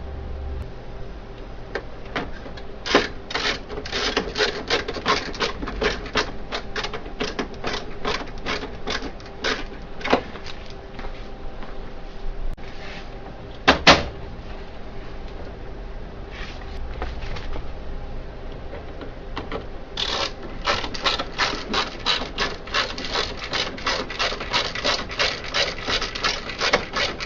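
A screwdriver driving two screws into a Dell 1815DN laser printer's front, heard as two long runs of rapid clicking, one for each screw. There is a single sharp click about halfway through.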